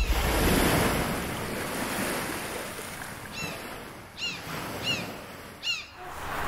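Sea surf washing steadily, fading gradually, with four short high chirps in the second half, about one every three-quarters of a second.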